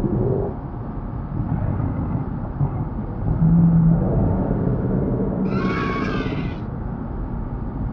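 Cartoon creature sound effects for toy dinosaurs and marine reptiles: a steady low rumble, with a high-pitched creature cry lasting about a second, about five and a half seconds in.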